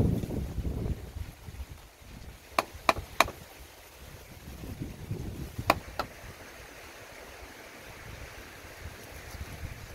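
Sharp knocks of a cleaver on a wooden chopping board: three quick chops about two and a half seconds in, then two more around six seconds, over a faint steady outdoor background. Low wind rumble on the microphone during the first second.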